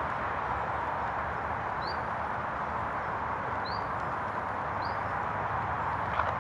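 Steady outdoor hiss, with three short, high, rising bird chirps at about two, three and a half, and five seconds in.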